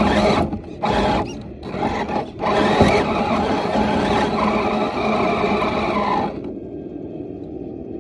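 An RC rock crawler's electric motor and geared drivetrain whine steadily under load as it climbs over rocks and brush, with short dips as the throttle eases. About six seconds in the whine drops away, leaving a quieter hum.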